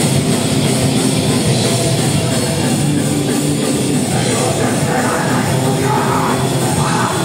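A live punk band plays a fast, loud song on distorted electric guitar, bass and drums. A shouted vocal comes in about four and a half seconds in.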